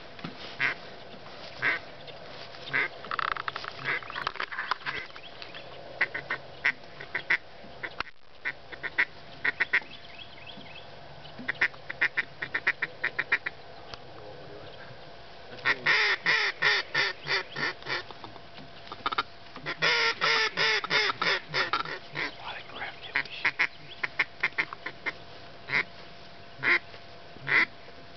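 Hunters' hand-blown duck and goose calls: short quacks and honks, scattered singly and in two long, fast runs of calls around the middle and about two-thirds through, calling to waterfowl flying overhead.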